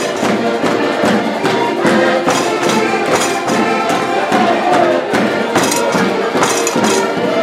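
Portuguese folk band playing accordions in a lively dance tune over a steady beat of about two strokes a second, with diners clapping along.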